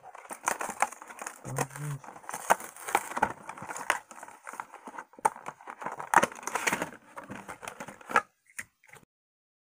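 Clear plastic and cardboard toy packaging crinkling and crackling, with many quick clicks, as a toy car is worked out of its box. It stops shortly before the end.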